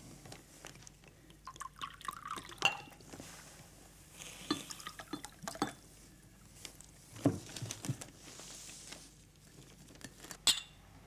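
Liquor poured from a bottle into small drinking glasses, with glass clinks and glasses and bottles knocked down on a table; a sharp clink about seven seconds in and another near the end are the loudest.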